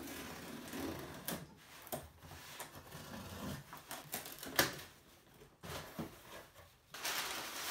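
Scissors slicing through packing tape on a cardboard shipping box, then the box flaps being pulled open with crackling and tearing of tape and one sharp snap a little past halfway. Near the end comes a louder rush of rustling, crinkling packing paper.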